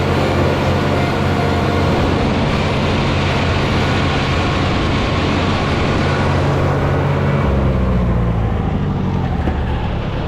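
Tractor engine running at working speed, then throttling back about seven seconds in: its note drops and the higher noise fades.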